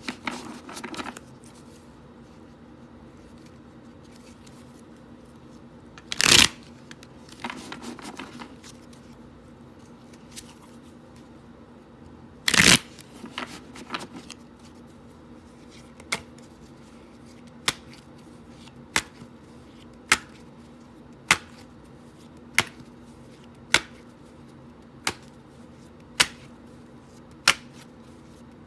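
Tarot cards being shuffled: two loud riffle-like bursts about six and twelve seconds in, each followed by a brief rustle. From about halfway there is a run of about ten sharp single clicks, evenly spaced a little over a second apart.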